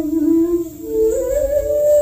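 Background music: a slow melody of long, held notes on a single lead instrument, sliding up to a higher note about a second in.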